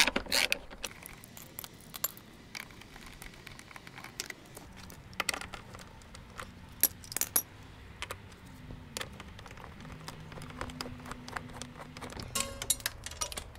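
Scattered sharp metallic clicks and clinks of a hand socket driver working on a motorcycle's seat bolts as they are loosened.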